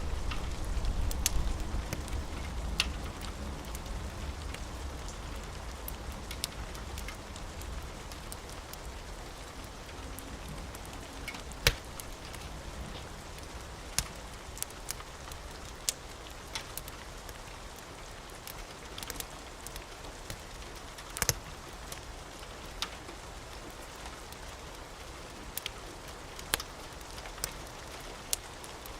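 Steady rain with a wood fire crackling, sharp pops scattered irregularly, the loudest about twelve and twenty-one seconds in. The tail of a low thunder rumble fades out over the first few seconds.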